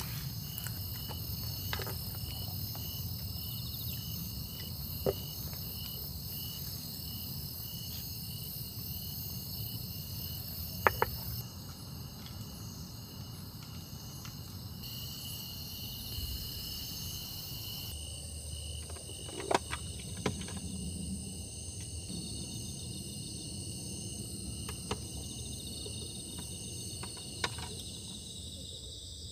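Crickets and other night insects chirping steadily, one of them a pulsing trill, over a dense high insect hiss. A few light, sharp clicks come through, the loudest a double click about eleven seconds in and two more close together near twenty seconds.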